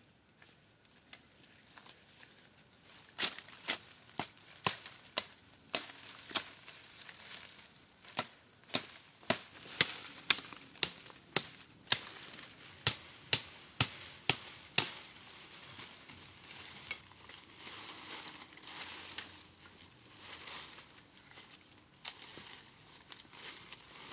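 A steady run of sharp strikes, about two a second, lasting about twelve seconds with one short break, then softer rustling and crunching.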